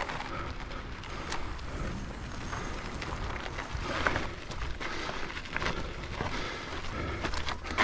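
Mountain bike ridden over dirt: steady tyre and wind rumble on the microphone, with scattered clicks, knocks and rattles from the bike.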